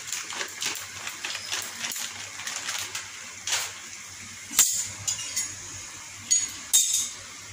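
Plastic bag crinkling in quick little crackles as grated cheese is shaken out of it over a pan of pasta, stopping after about three and a half seconds. Then a few sharp clicks, the loudest about four and a half seconds in and two more near the end, over a steady faint hiss from the pan on the stove.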